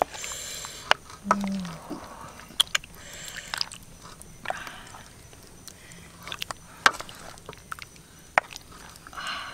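A wooden ladle scooping snake soup from a metal wok into a clay bowl: scattered knocks and scrapes of the ladle on the wok and bowl rim, with the broth splashing as each ladleful is poured.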